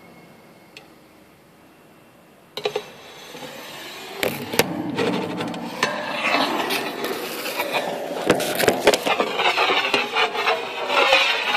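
Handling noise from a smartphone being moved through the equipment: irregular rubbing and scraping with sharp knocks and clatter. It starts suddenly about two and a half seconds in and keeps going.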